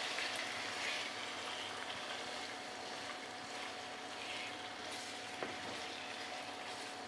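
Marinated chicken pieces sizzling steadily as they fry on high heat in hot oil and ghee with whole spices, turned with a wooden spatula in the pan.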